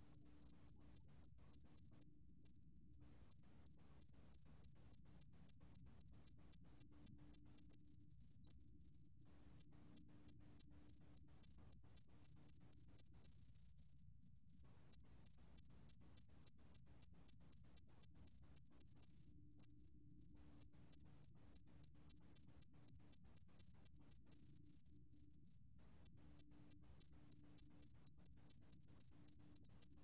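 Song of the sae-geumbit-jongdari (새금빛종다리) cricket at 20 °C: a high, pure tone in rapid pulses, about five a second, that run together into an unbroken trill lasting a second or so about every five to six seconds.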